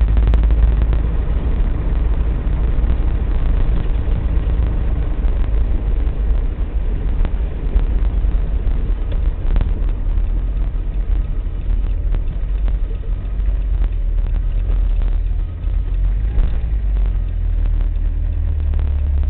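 Steady low rumble of a car in motion, with road and engine noise throughout.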